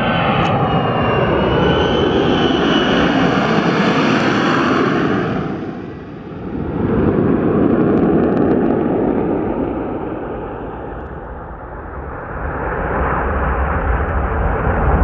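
An F-35's single F135 turbofan jet engine on landing approach: a loud jet roar with a high whine at first that sags slightly in pitch. The roar dips twice and swells again, with a deepening low rumble near the end as the jet comes closer.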